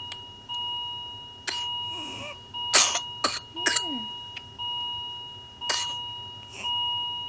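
Recording of a sick child's stridor, the harsh noisy breathing of a narrowed upper airway, with several sharp coughs. A steady high tone runs behind it and breaks off about once a second.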